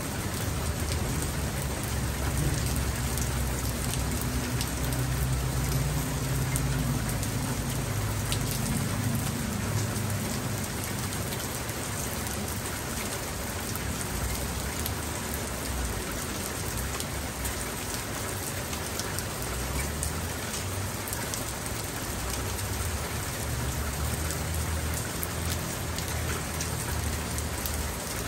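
Steady rain falling, with individual drops ticking close by. A low rumble of distant thunder rolls through in the first third and again near the end.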